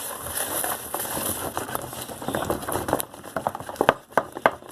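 Fluffy slime being kneaded and squished by hand: a sticky crackling at first, then from about three seconds in, sharp irregular pops and clicks.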